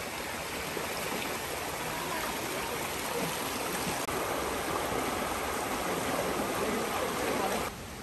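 A rushing jungle stream: water running steadily over rocks in a dense hiss. It cuts off suddenly near the end to a quieter background.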